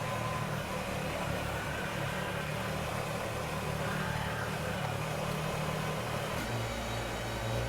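Kubota BX compact tractor's diesel engine running steadily. Its low tone shifts about a second before the end.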